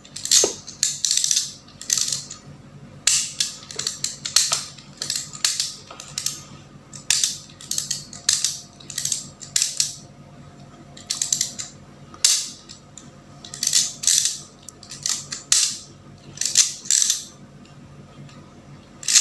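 RJ45 crimping tool squeezed again and again on a LAN cable's connector: a run of short, sharp clicks, about one or two a second in loose clusters. The repeated presses drive the connector's copper contacts down into the wires so they connect.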